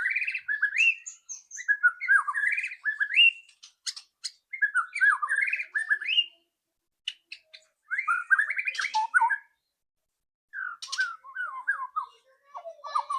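White-rumped shama singing in short, fast phrases of rising and falling whistled notes, about five phrases with brief pauses between them, with a few sharp clicks mixed in.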